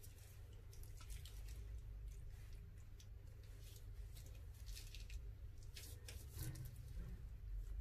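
Thick red colouring squeezed out of a plastic piping bag onto a slime base: faint, irregular wet squelches and sticky crackles as it is piped out, over a low steady hum.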